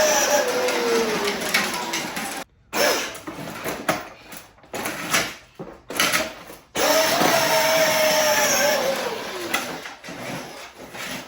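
Kids' electric ride-on four-wheeler's motor whining and its wheels rolling in stop-start bursts. There are two longer runs, one at the start and one past the middle, each dropping in pitch as it goes, with a few short spurts between.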